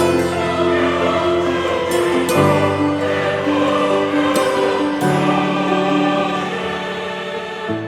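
Intro music: a choir singing sustained chords that change about every two to three seconds.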